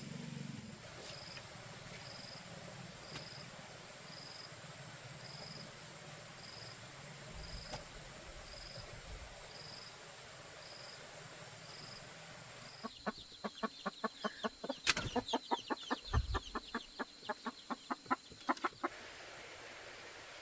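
An animal calling in a rapid run of short, sharp notes, about five a second for some six seconds, starting a little past halfway. Before it there are faint high pips about once a second.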